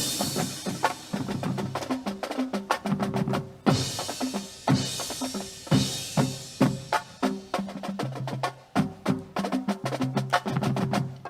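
Percussion-led music: rapid drum strikes with short pitched drum notes, and cymbal-like crashes at the start and again about four seconds in.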